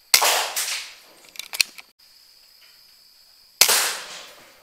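Two shots from a PCP air rifle, about three and a half seconds apart. Each is a sharp crack that dies away over about a second, and a few quick clicks follow the first.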